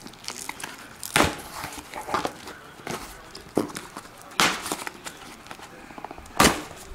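A taped cardboard box being torn open by hand: crinkling and scraping of cardboard and tape, with three loud rips, about a second in, around the middle and near the end.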